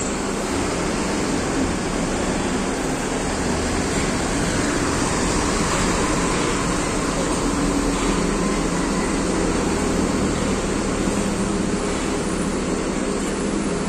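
Diesel engine of a front-engined Mercedes-Benz 1623 coach running steadily at low speed as the bus pulls in, a constant engine hum under a wash of noise.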